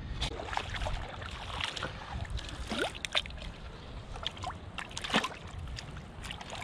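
Rubber boots sloshing through shallow seawater over soft tidal mud, with a string of small splashes and squelches.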